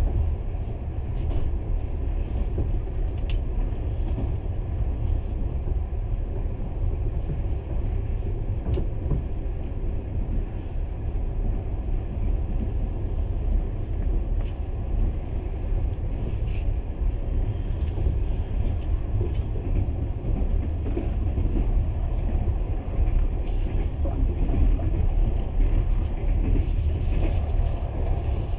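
Steady low rumble of a moving passenger train heard from inside the carriage, with a few faint clicks scattered through it.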